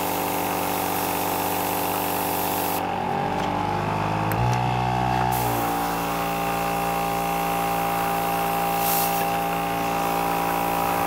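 Vogue Air 12 V diaphragm airbrush compressor running on its lowest setting, feeding an airbrush with a steady hum and the hiss of air from the brush. About three seconds in the hiss drops out and the motor tone wavers for a couple of seconds, then both settle steady again.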